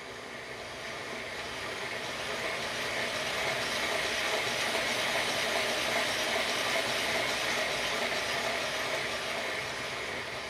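Bachmann G-scale locomotive's electric motor and gear drive running with its driving wheels turning on a roller test stand, whirring. It speeds up and grows louder as the track power is raised to about 12 volts around the middle, then slows and quietens as the power is turned back down.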